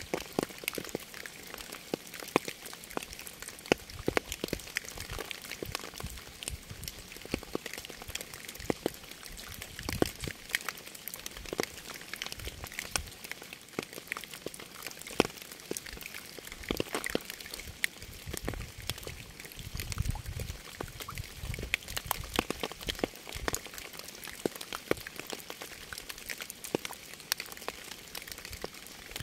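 Rain falling, with dense, irregular raindrops ticking sharply on a surface over a steady hiss. A few deeper low thuds come about ten and twenty seconds in.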